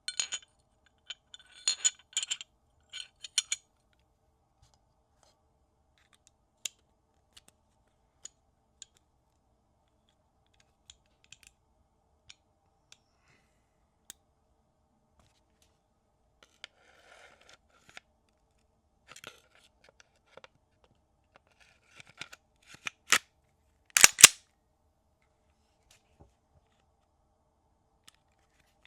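Clicks and clacks of a Glock 45 pistol being handled: a quick run of sharp clicks at the start, sparse faint ticks, then another run near the end with one loud, sharp clack.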